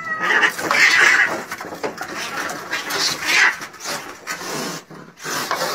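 An angry cat yowling and hissing: a rising yowl at the very start, then a string of harsh, noisy snarls and hisses.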